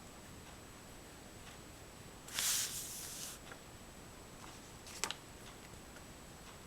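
Oil pastel scraping across paper in one stroke lasting about a second, then a sharp click about two seconds later, with faint scratches and taps between.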